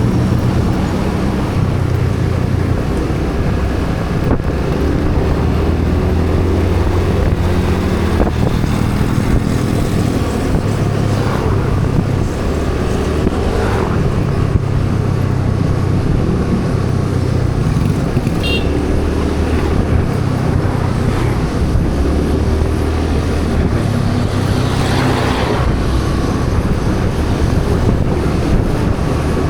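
Road vehicle engine running on the move with traffic around, the engine note rising and falling every few seconds as the throttle changes.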